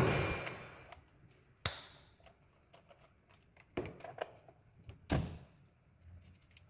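Sharp clicks and light knocks of a T-handle socket wrench and hands on the ignition coil hold-down bolts and coils of a Toyota Rush engine, as the bolts are undone. Two louder clicks come about three and a half seconds apart, with a smaller one and faint ticks between.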